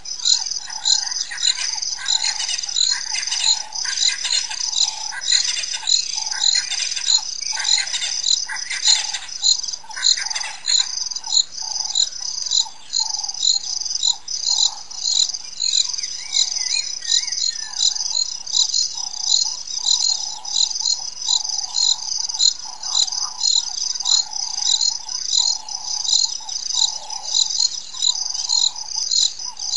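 A chorus of insects and birds: a high, regular pulsing call repeating about twice a second over a lower continuous trill, with short bird calls mixed in.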